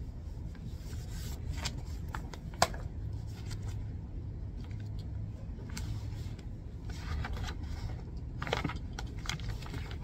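Paper rustling as the pages of a thick stack of printed documents are leafed through and handled, in scattered short rustles with a sharp click a little over two and a half seconds in, over a low steady room hum.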